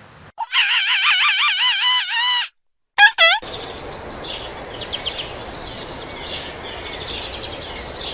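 A loud call with fast-wavering pitch for about two seconds, then two short sharp calls. After that comes a dense chorus of many small birds chirping over a steady hiss.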